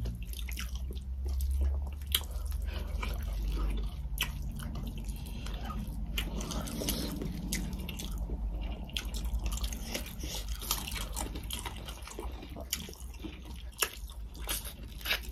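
Close-up eating sounds: wet chewing and lip-smacking clicks from two people eating rice and chicken curry by hand, over a steady low hum.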